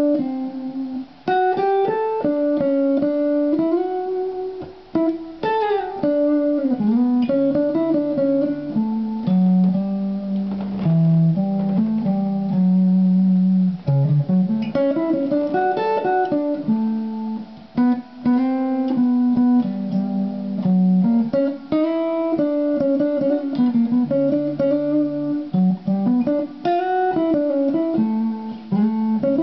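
Heritage H-157 solid-body electric guitar played solo: chords with a melody line on top, in phrases separated by brief pauses.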